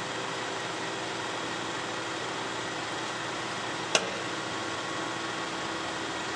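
DoAll LT-13 13 x 60 inch toolroom lathe running with its spindle turning, a steady, even hum with faint steady tones; one sharp click about four seconds in.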